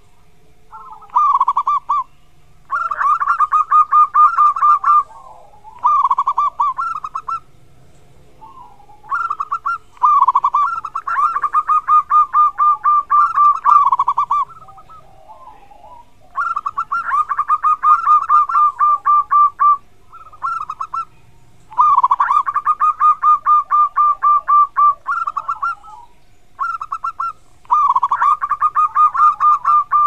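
Zebra dove (perkutut) singing: repeated cooing phrases, each a short opening note followed by a quick run of staccato coos lasting up to about five seconds, with gaps of a second or two between phrases.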